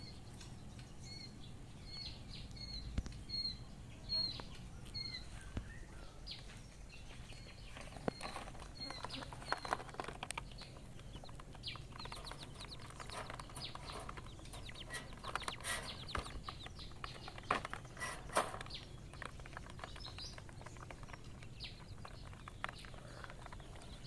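Quail chicks peeping, a string of short high peeps about two a second for the first few seconds. Then a stretch of scattered rustling, fluttering and light knocks as the chicks are chased and caught by hand.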